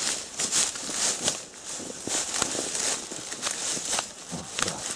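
Footsteps in rubber boots through dry reeds and grass: irregular crackling and rustling of the stems crushed underfoot.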